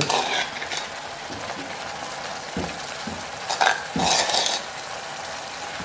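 Sliced ivy gourd going into a cast-iron kadai of onion-tomato masala, sizzling steadily, with a few short scrapes and clatters of a steel spoon against the pan.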